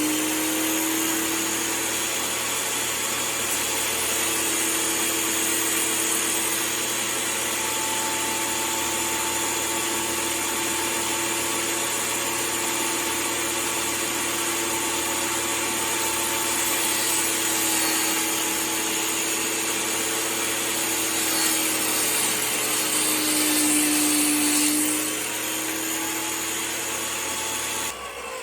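Table saw running and ripping a board lengthwise, a steady motor tone under the blade noise, its pitch sagging briefly under load about three-quarters of the way through; the saw is switched off near the end and begins to wind down.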